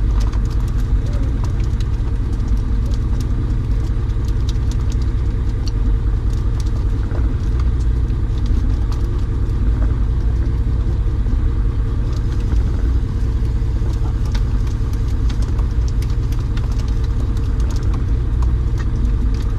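A steady engine rumble that runs unchanged, with faint scattered ticks over it.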